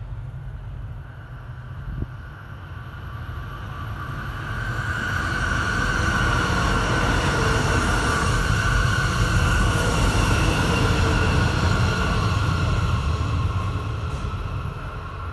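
A double-decker Shinkansen passing at speed. Its running noise swells from about four seconds in, holds loudest through the middle with a faint steady whine, and fades away near the end. There is a single short knock about two seconds in.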